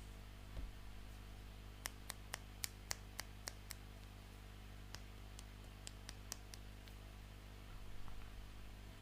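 Small sharp clicks of plastic toy pieces being handled and tapped together: a quick run of about four clicks a second, then a few scattered clicks, over a faint steady hum.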